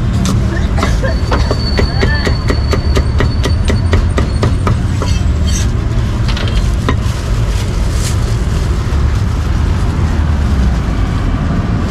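Cleaver chopping meat at a street-food stall: a quick, even run of strikes, about four a second, from about a second in to halfway through, then a few single chops. A steady low street rumble lies underneath.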